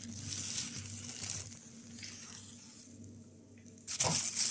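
Plastic bag rustling and crinkling as it is handled, quieter in the middle and suddenly loud about four seconds in.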